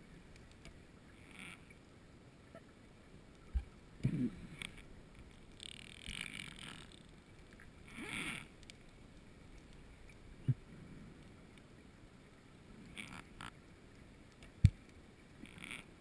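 Scuba diver's breathing underwater: bursts of regulator hiss and exhaled bubbles every few seconds, with three short sharp clicks, the loudest near the end.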